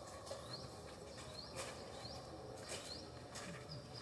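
Faint outdoor ambience with short, high, rising chirps repeating every second or so, with a few soft clicks.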